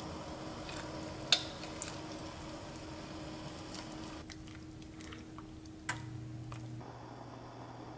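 Metal spoon clinking against a Staub cast-iron pot three times as seasoning paste is scraped into simmering anchovy broth and stirred, over a steady background hum that shifts lower near the end.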